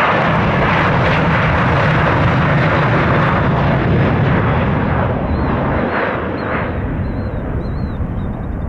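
Jet engines of a departing Sunwing Boeing 737 at takeoff power: a loud, steady rumble that slowly fades and loses its high end over the second half as the aircraft climbs away.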